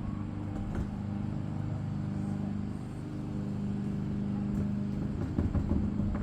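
Steady low motor hum, like an engine running, with clicks and rattles of frame tubes being handled over the last second or so.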